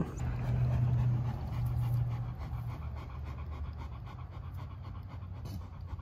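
Livestock guardian dog panting, a little louder in the first couple of seconds, then easing off.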